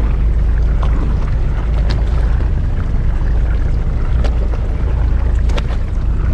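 Wind buffeting the microphone on an open boat at sea, a steady low rumble, with a few light clicks scattered through it.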